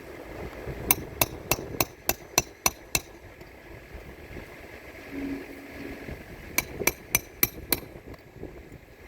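Hammer driving roofing nails into asphalt shingles: a quick run of about eight sharp strikes, a pause, then a second run of five, like two nails being set.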